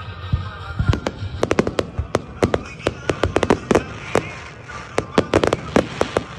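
Aerial fireworks shells bursting in quick succession: a dense run of sharp bangs and crackles, sparse at first and thickest from about a second and a half in.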